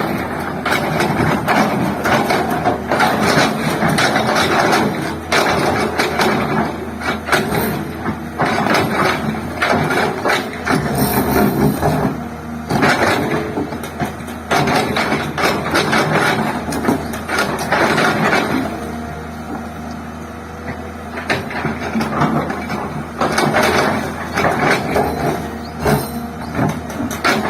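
Komatsu excavator at work: its diesel engine runs steadily under frequent metallic clanks and knocks from the machine working. The clatter eases off briefly about two-thirds of the way through, then resumes.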